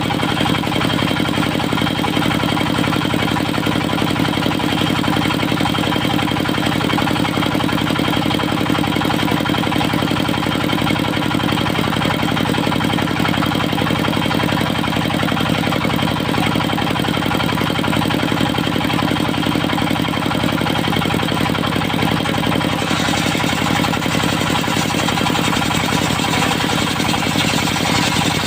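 Diesel engine of a portable circular sawmill running steadily, its firing heard as an even rapid pulse; the sound brightens somewhat about four-fifths of the way through.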